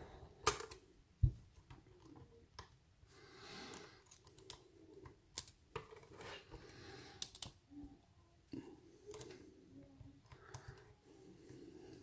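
Lock pick and tension wrench working in an American Lock 1100 padlock's keyway: scattered small metallic clicks and soft scraping as the pins are worked, with one sharper knock about a second in.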